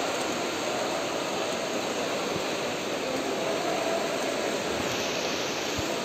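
Steady din of an indoor swimming pool hall, with a group of swimmers splashing hard through the water.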